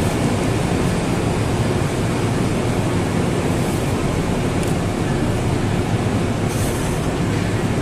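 Steady loud rumble and low hum of an underground train platform beside standing passenger trains, with a couple of faint brief hisses partway through.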